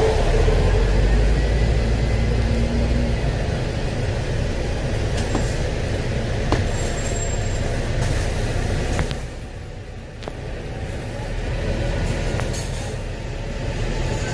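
Double-decker bus running, a steady low engine and road rumble with a few clicks and rattles. The sound eases off about nine seconds in and builds back up about two seconds later.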